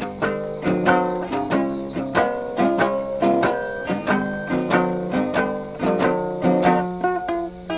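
Acoustic guitar strummed in a steady rhythm, chords ringing between strokes, playing a blues accompaniment.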